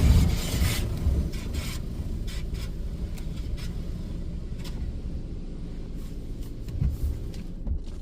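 High-pressure water spray from a Ryko Softgloss MAXX 5 automatic car wash's blasters, heard through the car's body from inside, fades out within the first second. A low steady rumble follows, with a few faint scattered ticks.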